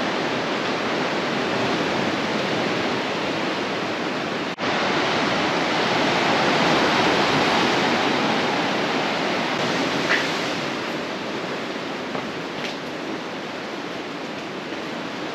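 Sea surf breaking and washing over the boulders of a rocky cove, a steady rush of white noise with a brief break about four and a half seconds in.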